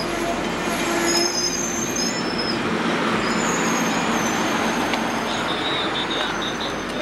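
Amtrak passenger train's coaches rolling past close by, a steady rumble and rush of wheels on rail, with short high-pitched wheel squeals coming and going over it.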